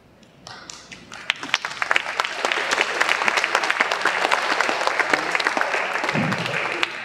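Theatre audience applauding. The clapping starts about half a second in, swells to a steady, dense level within a couple of seconds, and begins to die away near the end.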